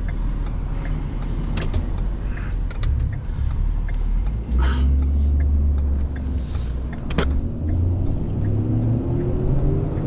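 Vehicle engine running with a steady low rumble, then accelerating, its pitch rising over the last couple of seconds, with a few short knocks.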